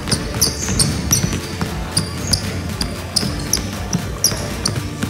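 Basketball dribbled hard and fast on a hardwood gym floor, the bounces coming in a quick, steady rhythm.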